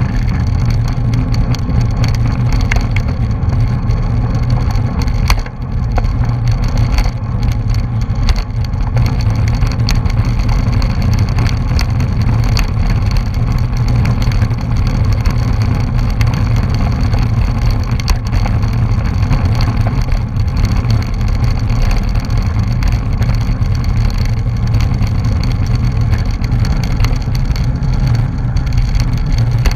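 Steady wind rush and road rumble on a bicycle-mounted camera's microphone while riding on pavement, a deep unbroken rumble with a few sharp clicks and rattles.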